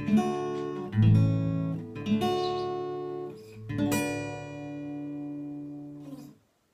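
Acoustic guitar strumming chords, a handful of strums, with the last chord left ringing and then stopped about six seconds in.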